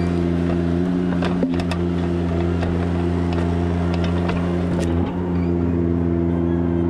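An engine running at a steady speed, with a few sharp knocks and clicks in the middle.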